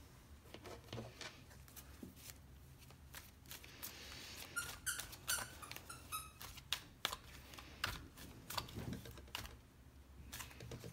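A deck of tarot cards being shuffled by hand: soft scattered clicks and flicks of card on card, with a denser run of quick ticks around the middle.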